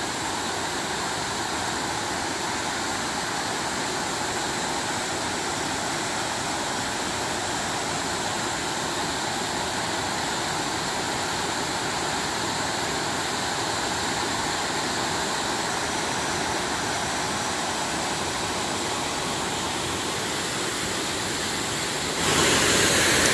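Multi-tiered waterfall pouring over rock ledges into a pool: a steady rush of falling water that grows louder about a second before the end.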